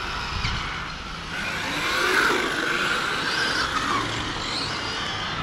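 Electric RC cars' brushless motors whining, the pitch rising and falling as the cars speed up and slow down around the track, with tyre noise underneath; loudest about two seconds in.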